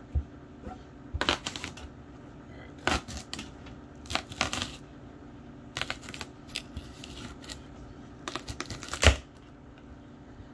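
Kitchen knife cutting and prying through the hard rind of a spaghetti squash on a wooden cutting board. Irregular crunching and scraping strokes come in short clusters every second or two, with the loudest knock about nine seconds in as the squash comes apart.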